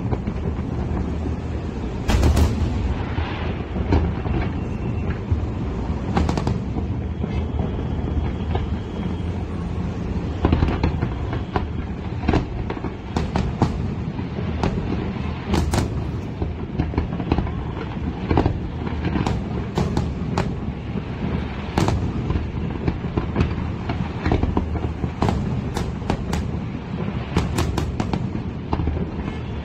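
Aerial fireworks shells bursting in a display: sharp bangs at irregular intervals, some in quick clusters, over a continuous low rumble.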